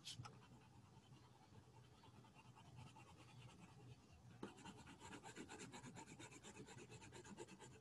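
Faint scratching of a crayon scribbled back and forth on paper to colour in an area, in quick even strokes several times a second, growing more distinct about halfway through.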